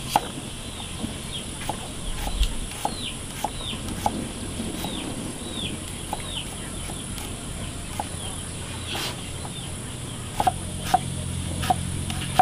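A bird calling in short falling chirps, about two a second, over a steady high-pitched hiss, with scattered light clicks and taps that cluster near the end.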